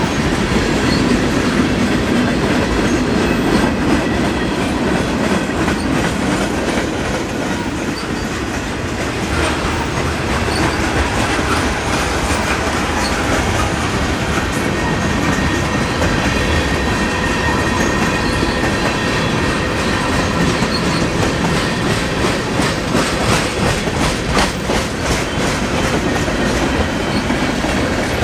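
Freight train cars rolling past with a steady rumble and clickety-clack of wheels over rail joints. The clacking grows denser near the end, and there is a faint thin wheel squeal partway through.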